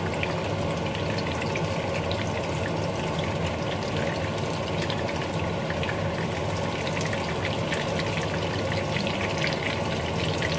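Chicken fritters frying in hot oil in a pan over high heat: a steady sizzle dotted with small crackles and pops.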